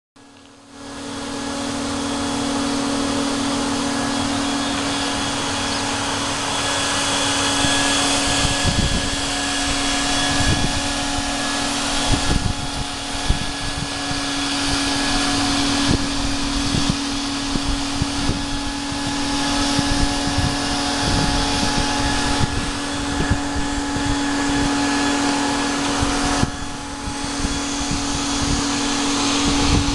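A steady machine hum, one constant tone over a hiss, starting about a second in, with irregular low thumps of handling or wind on the microphone.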